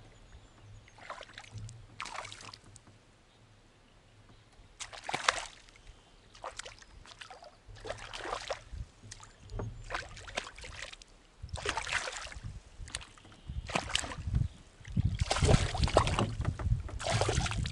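A hooked perch splashing at the water's surface beside a small boat: a series of short splashes that come closer together and louder in the last few seconds as the fish is brought in.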